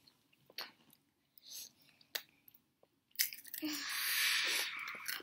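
Takis rolled tortilla chips being bitten and chewed: a few separate crunches, then about two seconds of continuous crunching near the end.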